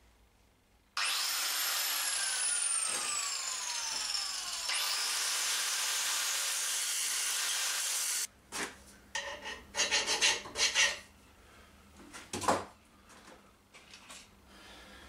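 Angle grinder grinding down a stainless steel bolt seized in a welded captive nut, a loud steady grinding whose pitch drops under load. It cuts off abruptly about eight seconds in, followed by a run of short metal scrapes and knocks.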